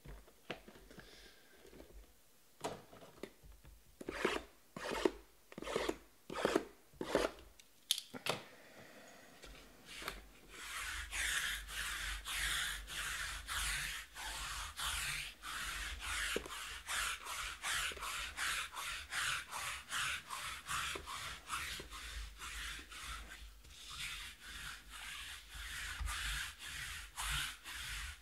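Sealed cardboard trading-card boxes handled and set down on a table, giving scattered short knocks. About ten seconds in, a steady run of rubbing strokes begins, about two a second.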